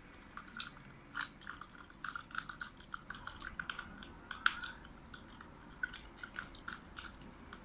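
A plastic measuring spoon stirring water and dish soap in a plastic cup, its tip tapping and scraping against the cup's sides in quick, irregular light clicks.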